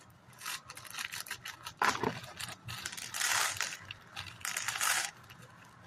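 Scissors cutting plastic, with small plastic Lego pieces clicking and rattling. A run of light clicks comes with two longer rustling cuts, one about three seconds in and one near the end.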